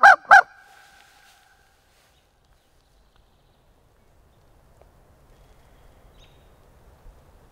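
Turkey call yelps: two loud, pitched yelp notes in the first half second, their tone ringing on and fading over about a second. Then quiet outdoor air.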